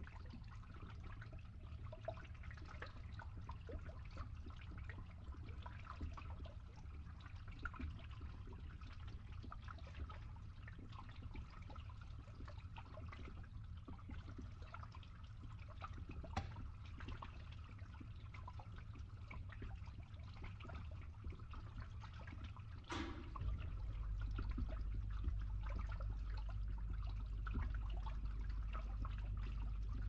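Water trickling as it drains through a pipe over a steady low pump hum. About three-quarters of the way in a sharp click sounds, and the low hum then becomes louder and stays steady.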